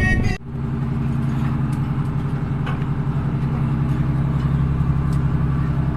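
Tugboat engine running steadily, an even low drone with a constant pitch.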